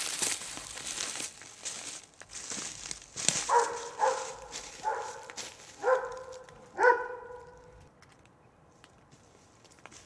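Footsteps crunching along a forest trail, then five short pitched barks from an animal, about a second apart.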